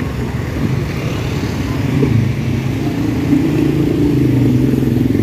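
A motor engine running steadily, a low hum that climbs slightly in pitch in the second half.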